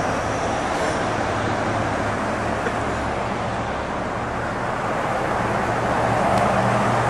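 Steady road traffic noise, a dense rushing hiss with a low engine hum that grows a little louder near the end.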